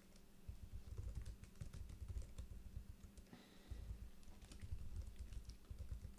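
Typing on a computer keyboard: a quick run of keystrokes that pauses briefly a little past the middle, then carries on.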